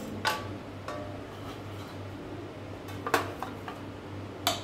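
A spatula and a steel serving plate knocking against a non-stick tawa as a cooked chilla is lifted off: about four sharp metallic knocks, some with a brief ring.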